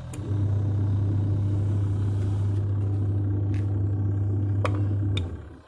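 Samsung washing machine running with a steady low hum, which cuts off suddenly near the end, just after a couple of clicks.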